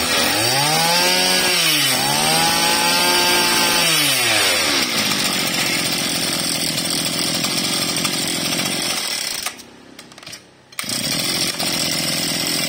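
Maruyama (BIGM) 26 cc two-stroke brush-cutter engine revved twice by hand at the carburettor, the pitch climbing and falling each time, then running steadily. Near the end its sound dips sharply for about a second and then picks up again.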